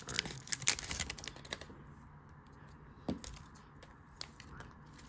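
Foil wrapper of a Donruss football card pack crinkling in the hands for about the first second and a half as the cards are pulled out, then a few soft clicks of the cards being handled.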